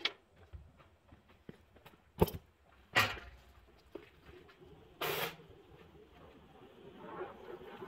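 A few sharp knocks and clanks from off-screen handling, the loudest two about two and three seconds in, with a short burst of hiss about five seconds in and a faint swell of rustling near the end.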